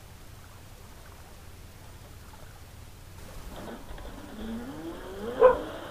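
A 43-inch A&M Challenger RC electric boat's motor whining as the boat runs on the water, faint at first, then rising in pitch over a couple of seconds as it speeds up, with a short loud peak about five and a half seconds in.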